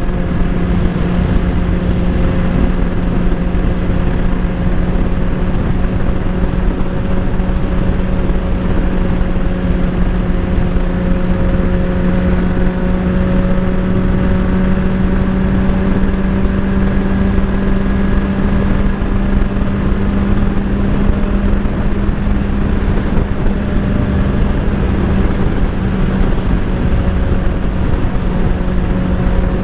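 Sport motorcycle engine running steadily at a constant speed, its pitch drifting up slightly in the middle, with heavy wind rush on the microphone.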